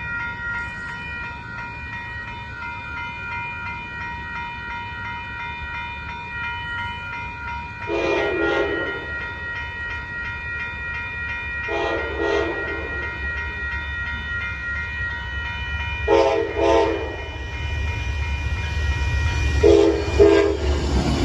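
Amtrak Texas Eagle train approaching a road crossing, its locomotive horn sounding in four short groups about four seconds apart, some as quick double blasts. Under it, the crossing bells ring steadily, and the low rumble of the train grows louder near the end.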